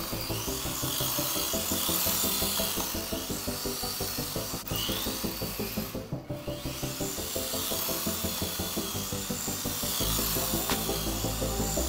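Background music with a WLtoys K989 mini RC drift car's small electric motor whining over it, the whine rising and falling in pitch as the car is driven.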